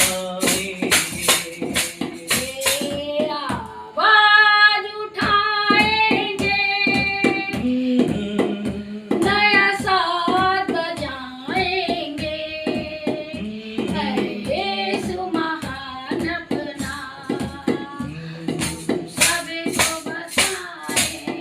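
A woman singing a Hindi Christian devotional song over a steady percussion beat. The percussion strokes are most prominent at the start and again near the end.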